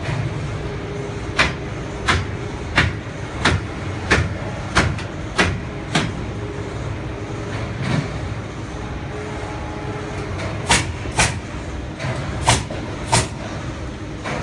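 A run of eight sharp knocks at an even pace, about one and a half a second, then after a pause four more in two pairs. Under them runs a steady low rumbling noise.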